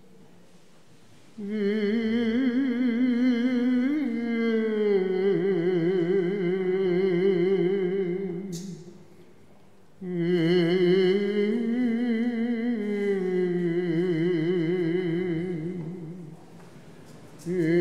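Orthodox liturgical chant sung by a single voice in long, drawn-out phrases with a wavering, ornamented pitch. It begins about a second and a half in, breaks off briefly twice and resumes each time.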